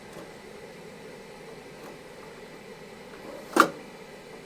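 Quiet room tone with a single sharp click about three and a half seconds in, from handling a small plastic cable tie around a wire.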